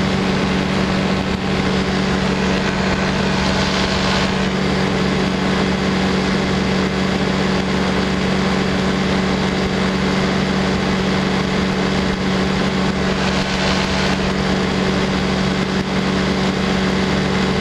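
Light aircraft engine and propeller droning steadily in flight, with wind rush over the microphone. The hiss swells briefly twice, about four seconds in and again near fourteen seconds.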